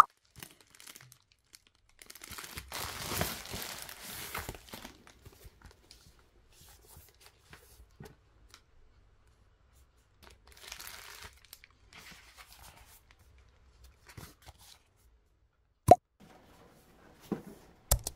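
Plastic bubble mailer being torn open, a long rip followed by crinkling and rustling of the packaging as a book is taken out. Two sharp knocks near the end, the first loud.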